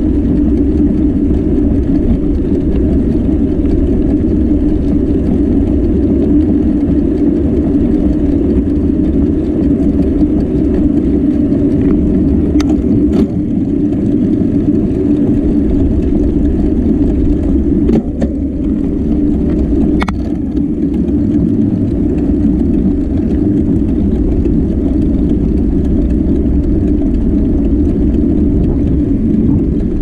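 Steady low rush of wind buffeting the microphone, mixed with tyre and road noise from a bicycle being ridden along pavement. A few faint clicks come through in the middle stretch.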